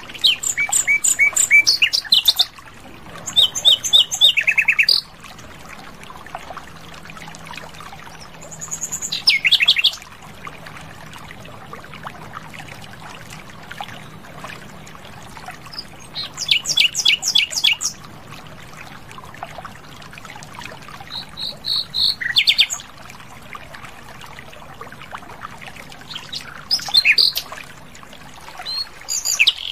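Common nightingale singing: about six loud phrases of rapid repeated notes and fast trills, each a second or two long, separated by pauses of a few seconds. A faint steady hum and hiss lie underneath.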